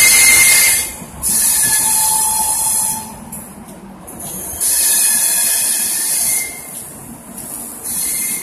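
Loud bursts of air hissing from a passenger train at the platform, four of them in turn, each lasting one to two seconds, with faint squealing tones under the hiss.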